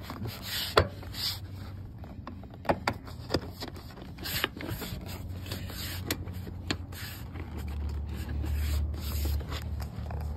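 A hand rubbing and brushing over a truck's ribbed plastic door sill plate, with scattered light clicks and knocks. A low steady rumble comes in near the end.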